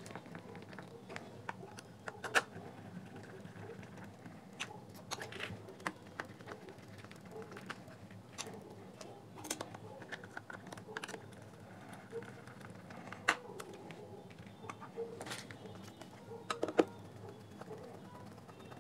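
Hand screwdriver driving small screws into the plastic frame of a JBL Pulse Bluetooth speaker: scattered small clicks and taps of the tool and plastic parts being handled, with a few sharper clicks.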